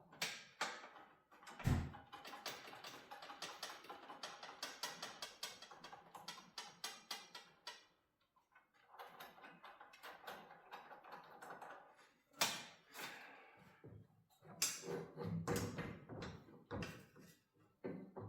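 Rapid metallic clicking of a ratchet wrench loosening the set screws on a garage door torsion spring's cone, in two runs of several seconds each, followed by a few metal knocks as parts are fitted on the torsion bar.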